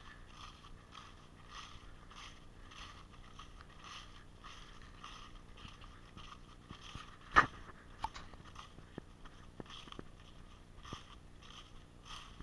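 Footsteps crunching through dry fallen leaves at a steady walking pace, about two steps a second, heard through an action camera's plastic protective housing. A single sharp click or snap stands out about seven and a half seconds in, followed by a few fainter clicks.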